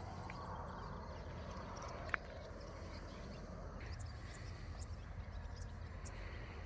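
Outdoor background noise with a low rumble and faint footsteps on pavement, with one sharp click about two seconds in.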